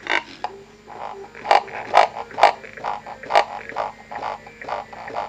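Music played through a homemade LM386-amplified induction speaker whose vibrating pin drives a paper cup, so that the cup sounds as the speaker. A regular beat of about two pulses a second sits over a steady low hum.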